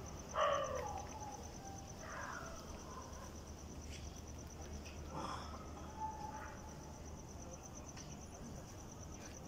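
A cricket trilling in a steady, rapid, high-pitched pulse. A few short, indistinct sounds come over it, the loudest about half a second in.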